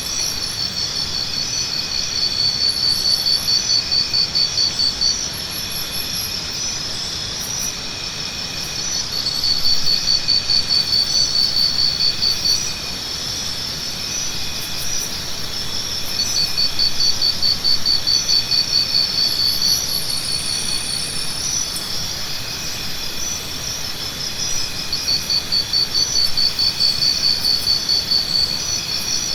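Tropical forest morning ambience: insects trilling in pulsing bouts of a few seconds each over a steadier high drone, with short high chirps now and then.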